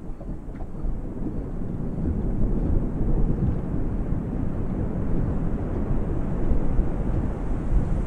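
Low rumble of distant thunder that swells over the first couple of seconds and rolls on, over gentle ocean waves lapping against a yacht's hull.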